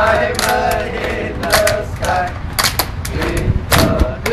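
A group of voices chanting together, with sharp hand claps at uneven intervals between the phrases.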